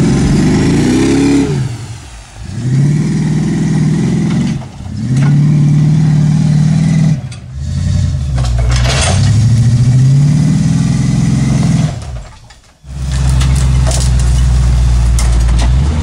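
GMC one-ton wrecker's engine revving under load off-road, in four or five separate runs of a few seconds each, the pitch climbing and holding in each run.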